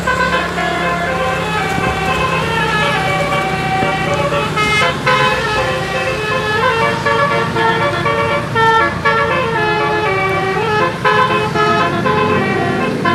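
Indonesian bus 'telolet' horn: a multi-trumpet air-horn set playing a quick tune of stepped notes that keep changing pitch. A steady low engine hum runs under it through the first half.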